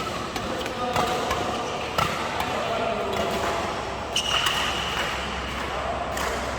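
Badminton rackets hitting the shuttlecock in a rally, sharp smacks about every half second to second, with background voices and a high squeak lasting about a second from about four seconds in.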